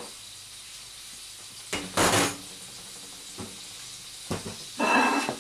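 Pineapple frying in butter in a frying pan, sizzling steadily, with two loud clatters of kitchenware being handled, about two seconds in and again near the end.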